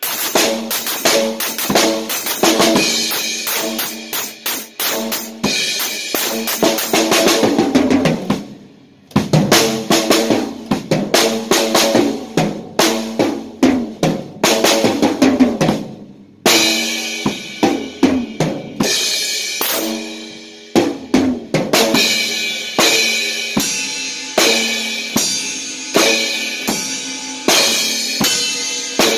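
Acoustic drum kit played fast and hard, dense strikes on drums and cymbals, breaking off briefly twice, about eight and sixteen seconds in, before starting again.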